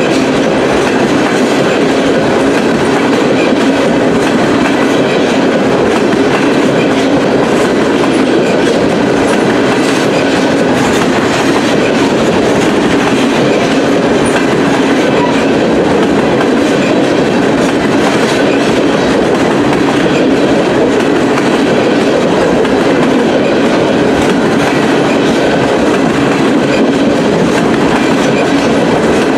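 Freight train of tank cars rolling past close by: the steady, loud noise of steel wheels running on the rails, with no break or change.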